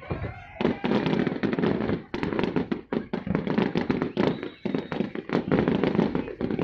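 Fireworks display: rapid bangs and crackling bursts going off one after another, with brief lulls between salvos.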